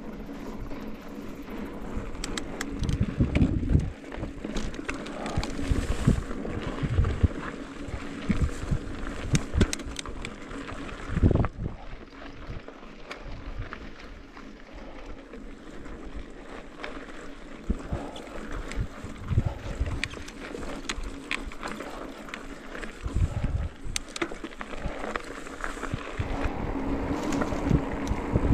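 A mountain bike ridden over a rough trail, rattling and knocking irregularly as it bumps over the ground, with wind buffeting the microphone.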